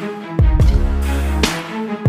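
Background music with a heavy bass line, sustained notes and drum hits. The bass drops out briefly at the start and again near the end.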